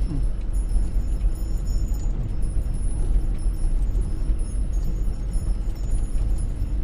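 Fiat Scudo camper van driving along a track, heard from inside the cab: a steady low engine and road rumble.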